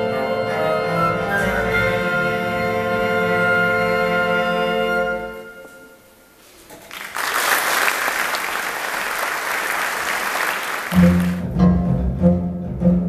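Tango orchestra with bandoneón, strings and brass holding a final chord that dies away about five seconds in, followed by several seconds of audience applause. Near the end a new tango starts with a strong, marked beat.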